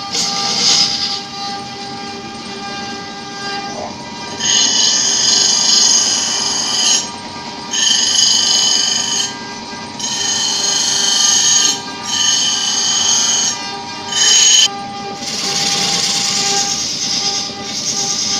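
A steel tool is pressed against a bench grinder's spinning wheel in about five screeching strokes, each a second or two long, from about four seconds in until near the end. Before and after, a wood lathe runs with a steady motor hum while a turning tool scrapes the spinning wooden workpiece.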